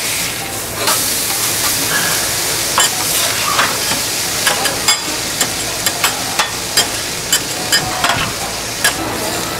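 Food sizzling on a hot flat-top steel griddle, a steady frying hiss. From about three seconds in, sharp clicks come about twice a second over the sizzle.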